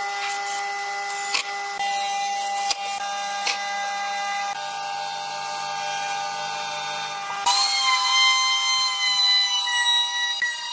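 A steady power-tool motor whine with a few sharp clicks. About seven and a half seconds in, a handheld electric router starts up and runs louder and more unevenly as it cuts along the edge of a wooden tabletop.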